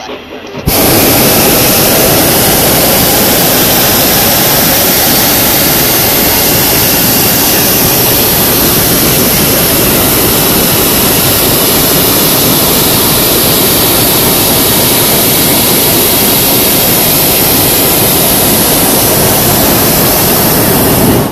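Hot air balloon's propane burner firing in one long, loud, steady burn that starts abruptly about a second in and cuts off suddenly near the end.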